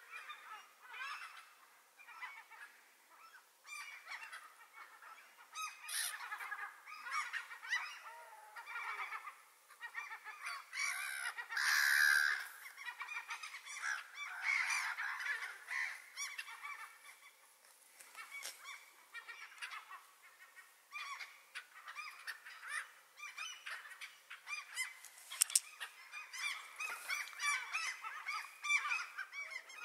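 A flock of gulls calling repeatedly, many short overlapping calls one after another, loudest about twelve seconds in.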